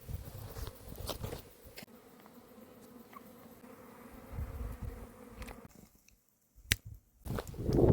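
Steady buzzing of a flying insect such as a fly or bee, with scattered light clicks. It breaks off in a short dead-silent gap about six seconds in, and louder rustling noise builds near the end.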